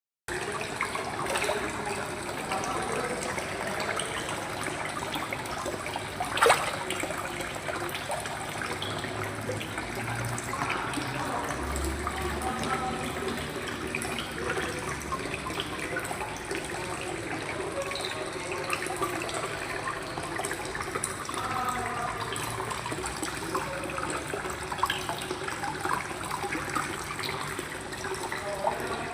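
Water running and splashing steadily, with one sharp knock about six and a half seconds in.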